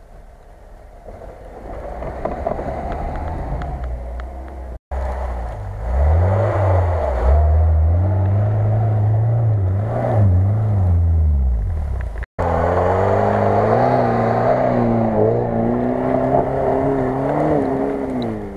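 Lada Niva engines working on a snowy off-road slope: the engine grows louder over the first few seconds, then revs up and down several times, then pulls steadily under load with a wavering note. The sound drops out abruptly twice where separate clips are joined.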